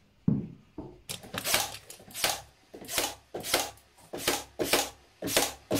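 Cordless brad nailer firing brads into a pine leg and MDF panel, a rapid run of sharp shots about two to three a second, with a single knock of the board just before the shots begin.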